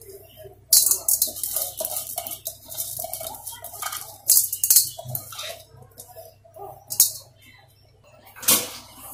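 Rice and lentils being stirred by hand in an aluminium pot: the grains rustle and hiss against the metal in several short bursts.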